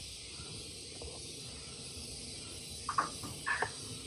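Steady high-pitched hiss of a tropical forest insect chorus, with a few brief sounds about three seconds in.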